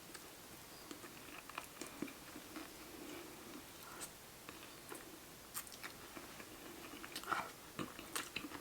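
Close-miked chewing and biting: soft mouth sounds broken by scattered small wet clicks and smacks, a few louder ones near the end.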